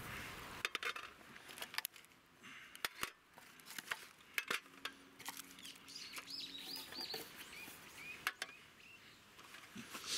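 Aluminium mess tin and camp cooking gear being handled: scattered light clicks, knocks and clinks as the lid comes off and items are taken out and set on the stove. A small bird chirps a few times about the middle.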